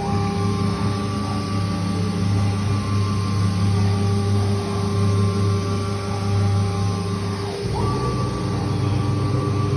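CNC router running with a steady motor hum and spindle whine while it flattens its own table. About three-quarters of the way in the pitch briefly dips and glides back up.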